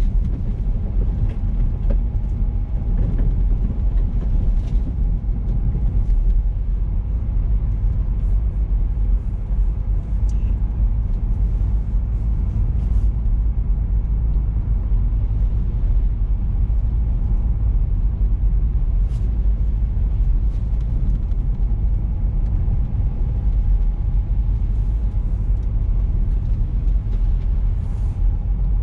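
Car driving at a steady pace: continuous low road and engine rumble, with a few faint ticks over it.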